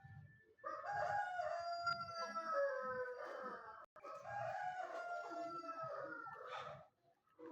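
Rooster crowing twice in a row, each crow a long call of about three seconds that slowly falls in pitch.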